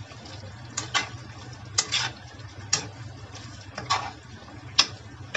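A cooking utensil scraping and stirring in a metal wok as chunks of chicken, potato, carrot and onion in sauce are turned over. There are about six scrapes, roughly one a second, over a steady low hum.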